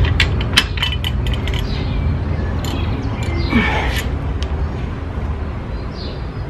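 Sharp metallic clicks and clinks from a torque wrench and socket being worked on diesel cylinder head bolts, a quick run in the first two seconds and a few scattered ones after, over a steady low rumble.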